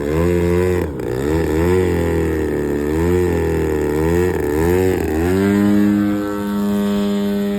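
A motor's pitched note wavering up and down about once a second, then settling into a steady pitch about five seconds in.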